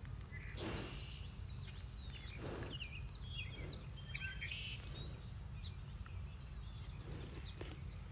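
Wild birds chirping and singing in many short, quick calls, thickest in the first half and again near the end, over a steady low rumble with a few soft rustles.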